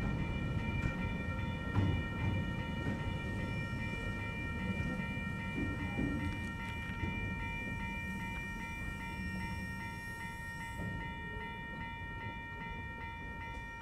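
Loaded container wagons of a slow freight train rumbling past, with scattered clacks and knocks from the wheels. Over it the level crossing's electronic warning bell rings steadily. The rumble slowly fades as the train draws away.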